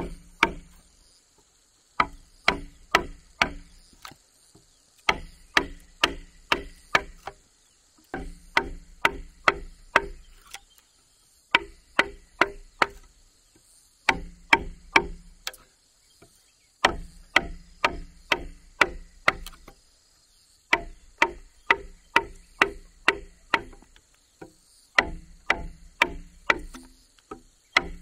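Hand tool blows cutting into a wooden house pillar, struck in runs of five to seven at about three a second with short pauses between runs. A steady high insect drone sits underneath.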